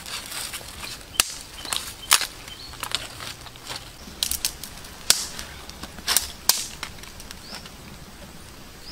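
Irregular sharp snaps and crunches of dry leaves, twigs and gravel being scraped and stepped on, loudest a few times in the first two-thirds.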